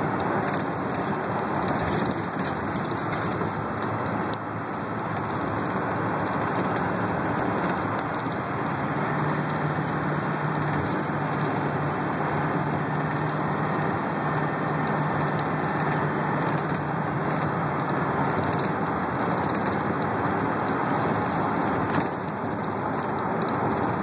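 Running noise of a small transit bus on the road heard from inside the passenger cabin: a steady drone of engine and tyres with occasional clicks. A low steady hum joins about nine seconds in and drops away about eight seconds later.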